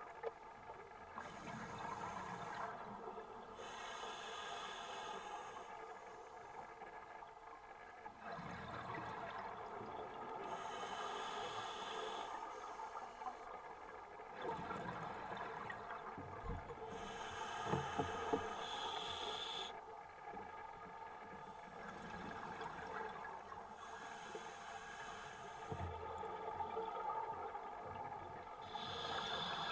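Scuba diver's breathing through a regulator, heard underwater: a hiss on each breath in and bubbling on each breath out, repeating every few seconds.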